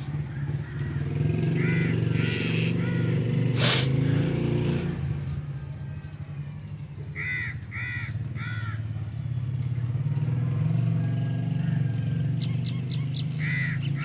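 Crows cawing in short runs of two or three calls over a steady low motor hum, with a single sharp click about four seconds in.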